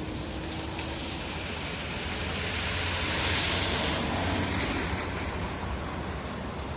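Road traffic running past: a steady low engine hum under tyre hiss that swells as a vehicle goes by, loudest about halfway through, then eases off.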